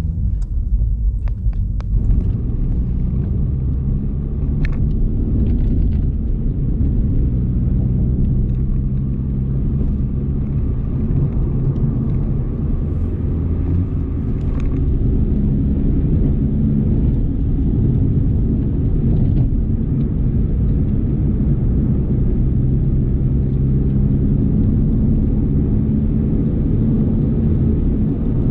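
Exhaust of an Audi A3 8V's 1.4 TFSI turbocharged four-cylinder petrol engine with the rear silencer deleted, droning steadily under way with small rises and falls in pitch. Picked up by a microphone in the car's boot.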